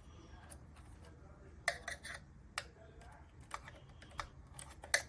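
Scattered light clicks and taps: a small screwdriver working a terminal screw loose on a circuit board's wire block, with a quick cluster of clicks about two seconds in and single clicks after.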